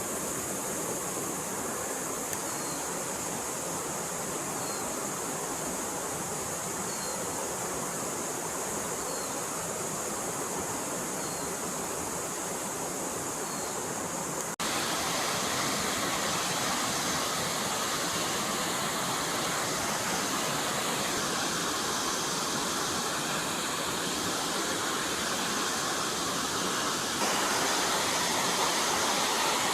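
Forest stream flowing steadily over rocks. The rush shifts abruptly louder and brighter about halfway through and again near the end. A faint short chirp repeats every two seconds or so in the first half.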